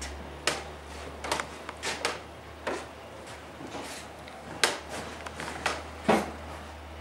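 Irregular clicks and knocks, about ten of them, sharpest a little past the middle and near the end, over a steady low hum.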